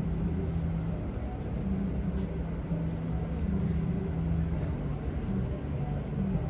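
Street traffic: vehicle engines running with a steady low hum and road noise.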